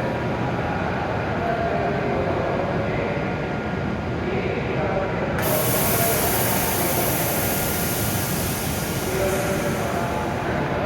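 E7 series Shinkansen train at the platform, with a steady mechanical running noise. About halfway through, a sudden high hiss starts and fades out over about four seconds.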